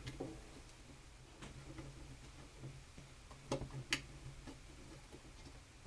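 Faint, scattered small clicks and taps, with a few sharper ones about one and a half, three and a half and four seconds in: small screws being handled and started into a car radio's chassis with a nut driver.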